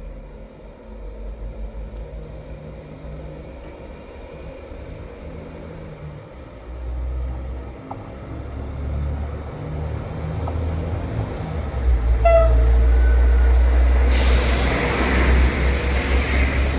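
SA134 diesel railcar approaching and drawing alongside the platform, its diesel rumble growing steadily louder. A brief horn toot sounds about twelve seconds in. Wheel and rail noise rises sharply near the end as the train reaches close by.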